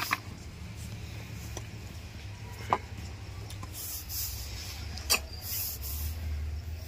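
Workbench handling noise from a small circuit board, solder reel and tools: three sharp clicks spread a couple of seconds apart, with a few short hisses near the end, over a low steady hum.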